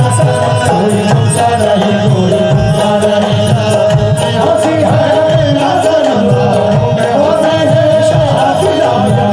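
Live qawwali music: harmonium holding a melody over a steady hand-drum rhythm, with singing.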